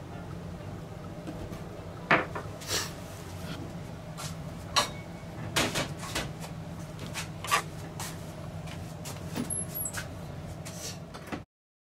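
Kitchen handling noises over a steady low hum: a dozen or so scattered sharp knocks and clinks of utensils and dishes. The sound cuts off abruptly near the end.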